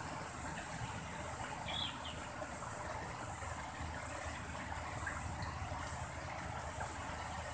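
An insect calling in a steady rhythm, a high-pitched pulse a little more than once a second, over a constant background hiss and rumble, with one brief higher chirp about two seconds in.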